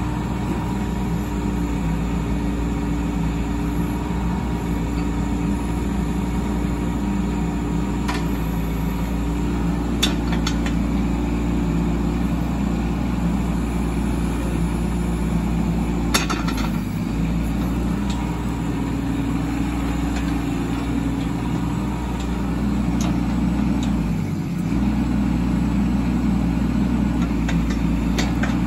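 Doosan DX10Z micro excavator's diesel engine running steadily while the boom and bucket are worked, with two brief dips in the engine note. A couple of sharp clicks.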